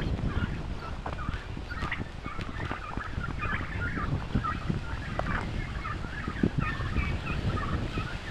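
A flock of white domestic poultry calling, many short chattering calls overlapping, starting about a second and a half in.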